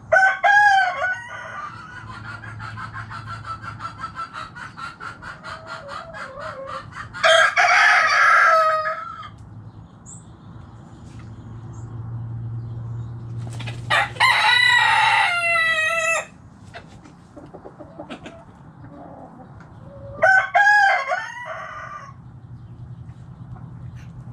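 Backyard chickens: roosters crowing, with two long crows about 7 and 14 seconds in and shorter calls at the start and near 20 seconds, while a hen clucks in a fast, rapid series early on.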